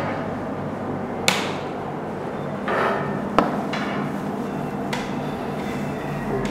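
A cloth rubbing over a whiteboard, with two sharp taps against the board, about a second in and about halfway through, and a softer one after.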